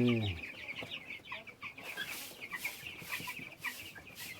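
A flock of young broiler chicks peeping, many short high cheeps overlapping into a continuous chorus.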